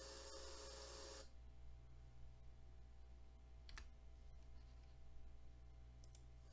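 Near silence with a steady low electrical hum; a faint hiss stops about a second in, then a single sharp click comes just after the middle and a faint double click near the end.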